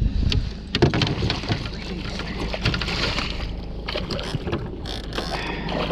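Knocks, clicks and splashing in a fishing boat as a muskie snagged in the landing net is worked free, over a steady low boat-engine hum.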